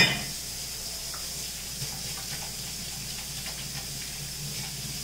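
Kitchen tap running steadily into the sink for hand washing, with one sharp knock right at the start.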